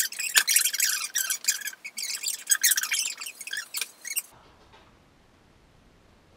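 High-pitched squeaky chattering with many quick clicks for about four seconds, cutting off suddenly, then near silence.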